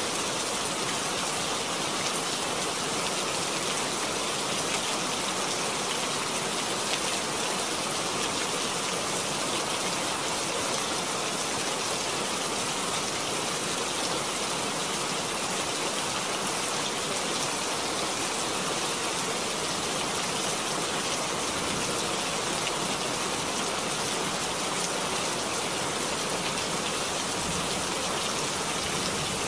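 Steady rain falling: an even hiss of many drops.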